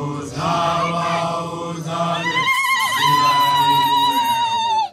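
Voices chanting together in a ceremonial song. About halfway through, a high voice holds one long wavering note that cuts off abruptly.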